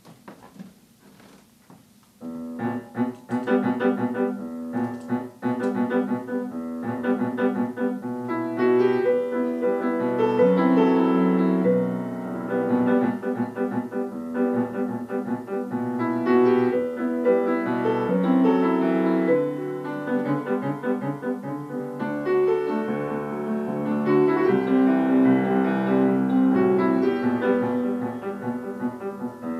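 Solo grand piano. After about two seconds of quiet it starts playing, with many quick notes and held chords.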